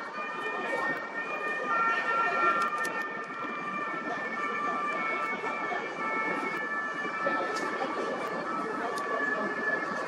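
Chatter of many voices mixed together, with steady high-pitched tones running through it.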